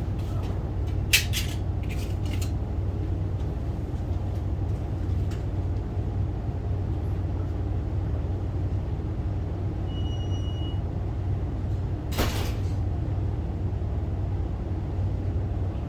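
A steady low machine hum, with a cluster of sharp knocks about a second in and another single knock about twelve seconds in.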